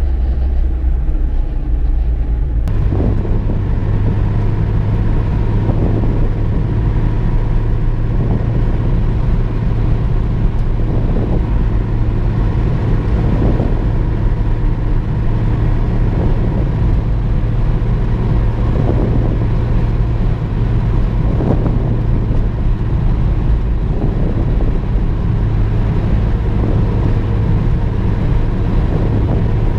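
VW Golf II engine and tyre noise heard from inside the cabin while driving: a steady low drone. About three seconds in, the engine note steps up to a higher pitch and then holds steady.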